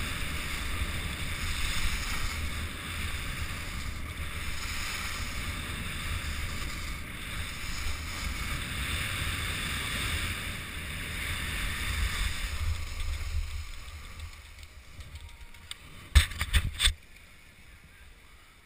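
Wind buffeting an action camera's microphone, with the hiss of sliding over snow while riding down a ski slope. It dies away from about thirteen seconds in as the rider slows to a stop, and a few sharp knocks come near the end.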